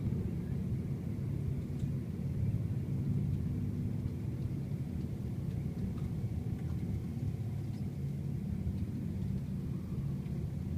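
Several Black Hawk-type military helicopters flying past: a steady low rotor rumble.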